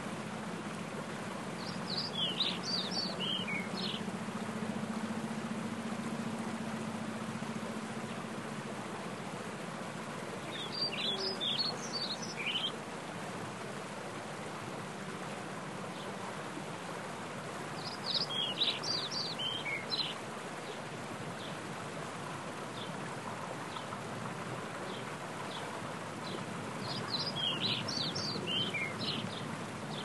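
Mountain stream running over rocks, a steady rush of water. A songbird sings the same short phrase of quick notes, falling in pitch, four times, about every eight seconds.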